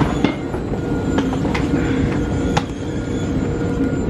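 Airport baggage carousel running with a steady rumble and a faint whine, broken by a few sharp clacks as a hard-shell suitcase is lifted off the belt.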